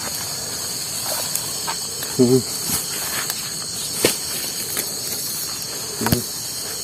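Steady, high-pitched chorus of forest insects, with a brief voice about two seconds in and two sharp knocks, around four and six seconds in.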